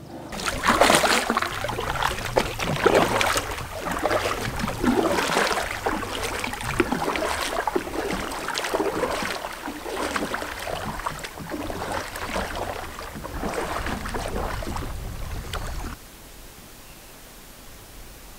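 Kayak paddle strokes splashing and water lapping against the hull, irregular and fairly loud; the splashing cuts off suddenly near the end, leaving only a faint steady hiss.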